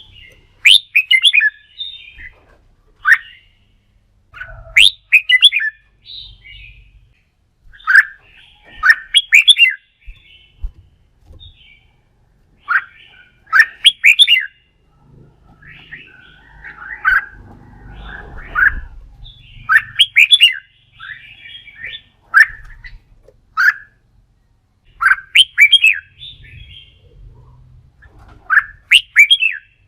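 Red-whiskered bulbul singing its competitive fighting song: short, loud phrases of quick rising and falling notes, repeated every second or two.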